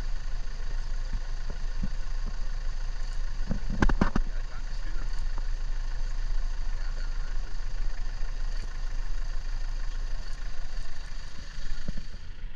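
Vehicle engine idling steadily, with a short cluster of knocks about four seconds in.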